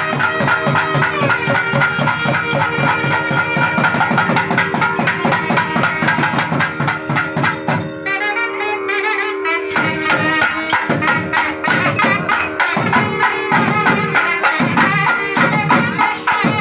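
Traditional temple music: loud drumming with a wind-instrument melody over a steady drone. The drums drop out for about two seconds in the middle, leaving only the melody, then come back in strong, separate beats.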